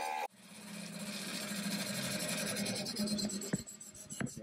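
Bandsaw cutting through a sheet: its steady running sound drops out suddenly just after the start, then builds back up into a steady rasping hum, with a few sharp knocks near the end.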